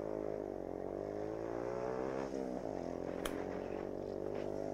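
Motorcycle engine under way, its revs dipping, climbing, then dropping sharply about halfway through before holding steady, with a single sharp click about two-thirds of the way in.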